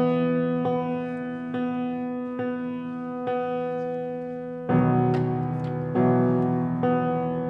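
Piano playing a slow, bell-like repeated chord, struck about once a second and left to ring. Near five seconds in a fuller, louder chord comes in and is struck again twice.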